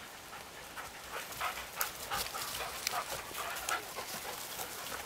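Several dogs giving short whimpers and yips, over a patter of rustles and clicks.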